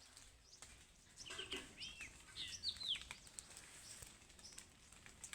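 Birds chirping faintly: a quick series of short, curving calls about one to three seconds in.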